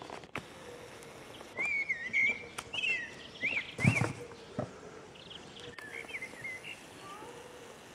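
Small birds chirping over outdoor ambience: a run of short rising-and-falling chirps in the first half and a few more about six seconds in. A sharp thump about four seconds in is the loudest sound.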